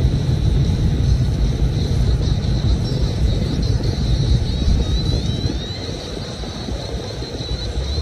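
Car driving, a steady low engine and road rumble that eases slightly about six seconds in, with faint high chirping over it.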